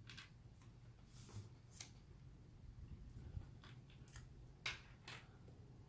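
Faint, scattered light clicks and taps, about half a dozen, from a phone's small parts and repair tools being handled on a work surface, over a low steady hum.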